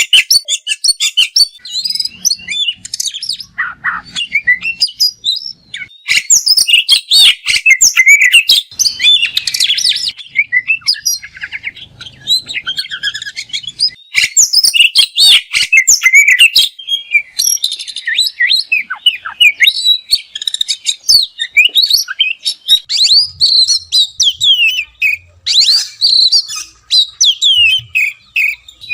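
Oriental magpie-robin (kacer) singing a long, varied song of rapid chattering notes and whistled phrases packed with mimicked calls of other birds, pausing briefly a couple of times.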